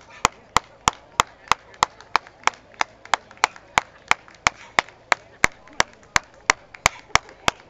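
One person clapping close to the microphone in a steady rhythm, about three sharp claps a second: applause from ringside for the dogs gaiting in the show ring.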